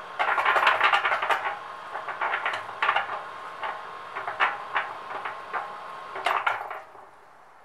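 Ozito electric cement mixer running with its drum empty: irregular clanking and rattling over a faint steady motor whine, cutting off suddenly near the end as it is switched off.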